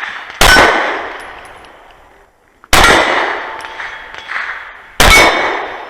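Sig Sauer P320 Carry pistol fired three times at slow, even spacing of a bit over two seconds, each loud shot followed by a long ringing decay as the struck steel plates ring.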